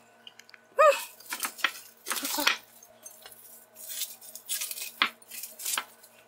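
Plastic cling wrap being peeled off a plate, crinkling in short bursts, with light clinks of a dish and glass bowl set on a wooden board.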